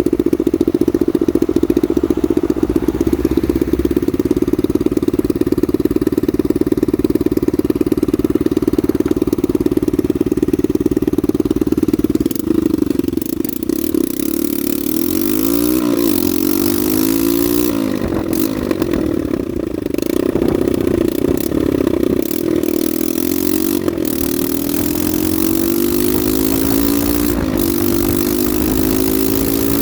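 Honda NSF100's single-cylinder four-stroke engine running at a steady speed for about twelve seconds, then revved up and down in repeated swells, its pitch rising and falling and climbing again near the end.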